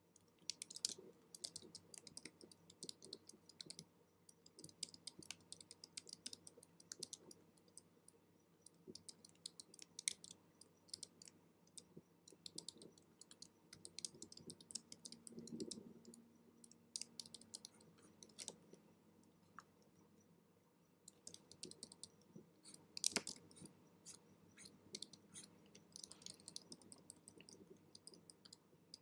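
Faint, irregular clicking and tapping in quick clusters from hand input while painting digitally, a stylus on a drawing tablet and keyboard keys, with a few sharper clicks standing out.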